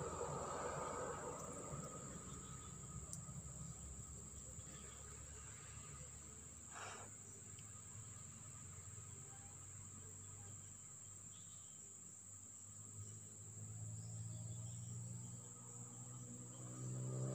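Faint, steady high-pitched chirring of insects such as crickets, over a low rumble, with one brief soft swish about seven seconds in.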